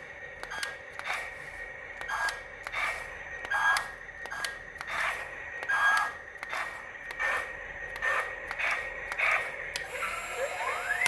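Irregular clicking and tapping of small hard parts, one or two clicks a second, over a faint steady high tone. A rising whine starts near the end.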